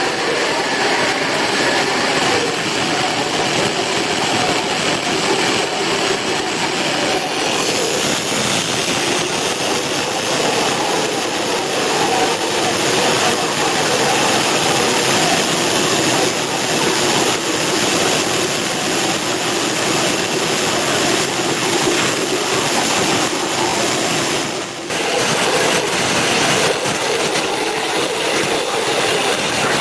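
CNC water jet cutter running: a loud, steady hiss of the high-pressure water stream, with a brief dip about 25 seconds in.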